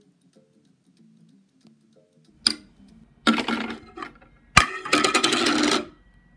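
A hard, flat disc spun and clattering on a wooden floor. A sharp knock comes, then a loud rattling scrape; a second knock is followed by about a second of fast, dense rattling as the disc wobbles, and then it stops.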